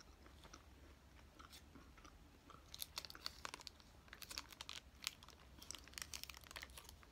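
Faint, close-up chewing and mouth sounds of someone eating fast food. A run of sharp wet clicks and smacks starts about three seconds in.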